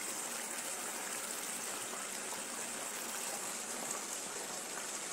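Food cooking on a stovetop: a steady, even sizzling, bubbling hiss from a pan of fish stewing and a pot of dumplings and green bananas boiling.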